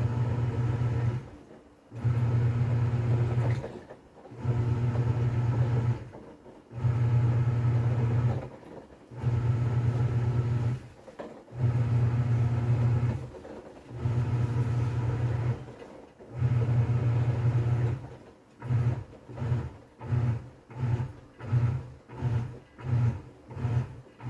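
TCL 7.5 kg top-load washing machine's motor driving the pulsator in its wash cycle, humming in bursts of about a second and a half with short pauses as it turns one way and then the other. From about eighteen seconds in, the bursts become short quick pulses, about one and a half a second, as the wash program nears its end.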